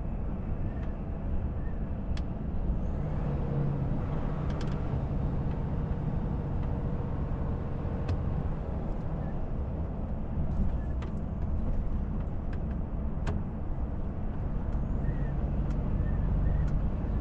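Volvo FH truck cruising at about 70 km/h, heard inside the cab: a steady engine drone and road noise, with a few faint clicks.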